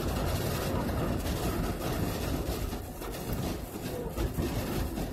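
Road and wind noise inside a moving car on the highway, a steady rumble with a fluctuating level as strong winds hit the vehicle.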